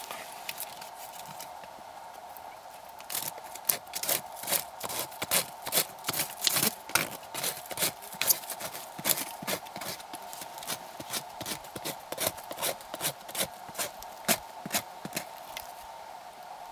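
Knife blade shaving curls off a split stick of wood, a quick run of short scraping strokes, a couple to a few a second, starting about three seconds in and stopping shortly before the end. A steady thin whine from the camera's optical stabilizer runs underneath.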